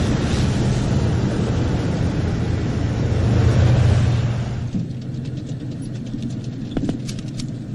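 Tracked BMP infantry fighting vehicles driving over open ground: steady engine and track noise with a low hum, loudest about three to four seconds in as one passes close, then dropping away about five seconds in. A few sharp cracks come near the end.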